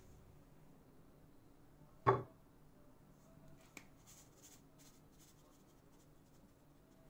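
Quiet room tone broken by one sharp, short knock with a brief ring about two seconds in, followed by a few faint ticks.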